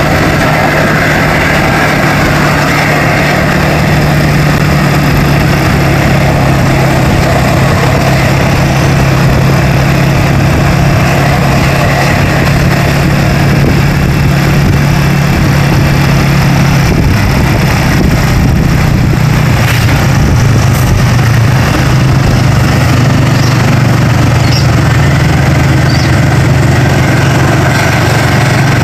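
Road vehicle engine running steadily, a loud low hum that shifts pitch about 17 seconds in.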